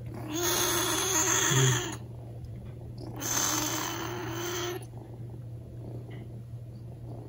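Black kitten meowing in two long, hoarse calls, its voice raspy from crying so much.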